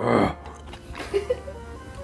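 A man's sharp, noisy breath through an open mouth at the start, a pained reaction to the burn of very spicy kimchi and ramen, over soft background music. A couple of small clicks follow about a second in.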